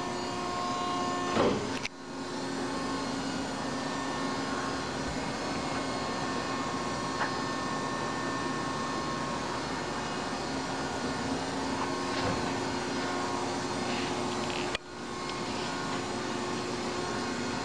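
Steady mechanical hum with a constant low tone from a powered-up Durma 175-ton CNC hydraulic press brake, its hydraulic pump motor running. A brief knock comes about a second and a half in. The hum cuts out for an instant twice, at about two seconds and near the end.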